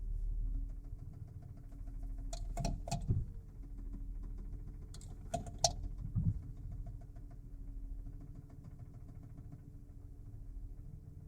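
Mazda Xedos 9 V6 engine idling with a knock in the motor while a gear is being engaged. Two clusters of short sharp clicks come about two and a half and five and a half seconds in.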